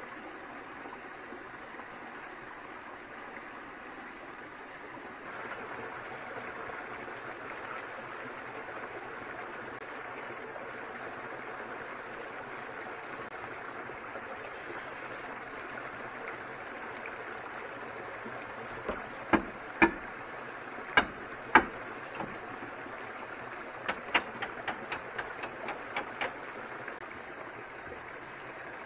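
A steady rushing noise like a running stream. About two-thirds through, a handful of sharp, loud knocks come over some three seconds, then a quicker run of about eight lighter knocks, roughly three a second.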